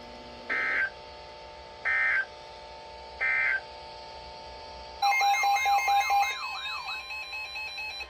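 Weather radio sending the three short data bursts of an EAS (SAME) end-of-message code, about a second and a half apart, over a faint steady hum. About five seconds in, a loud electronic sound of warbling, beeping tones begins.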